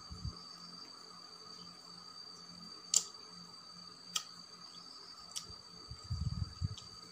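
Eating by hand from a leaf plate: fingers working rice and close mouth sounds. There are three sharp clicks about a second apart midway, and a short run of low chewing sounds near the end. A steady high insect trill runs underneath.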